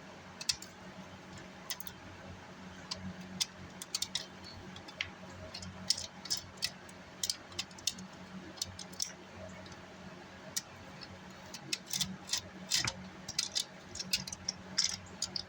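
Irregular small metallic clicks and ticks of a screwdriver and screws being worked to take the cooling fan out of a car amplifier, over a steady low hum.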